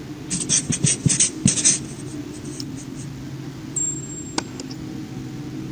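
Marker pen scribbling sound effect: a quick run of scratchy strokes lasting about a second and a half, over a steady low hum. A short high beep and a single click follow a couple of seconds later.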